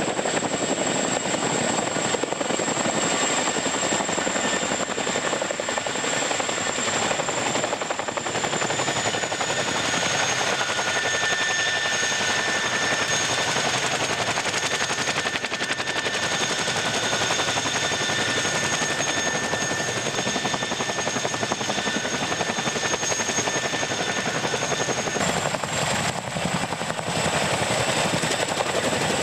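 CH-47F Chinook tandem-rotor helicopter running, with rotor noise and a high, steady turbine whine from its two Lycoming T55 turboshaft engines. The whine drops slightly in pitch about ten seconds in and jumps back up near the end.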